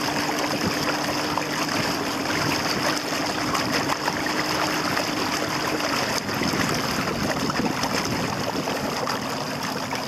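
Water rushing and splashing along the hull of a small fiberglass dory under way. Underneath it is the steady hum of its 1999 Mariner 15 hp outboard, which fades out about six seconds in.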